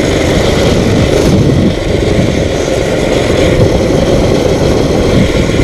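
Small dirt bike running at speed on pavement, its engine noise mixed with heavy, steady wind rush on the microphone.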